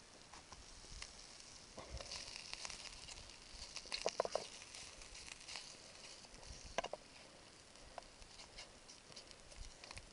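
Slices of food frying in oil in a pan over a campfire: a faint steady sizzle, with clicks and scrapes as a knife turns the slices, most of them about four seconds in and again near seven seconds.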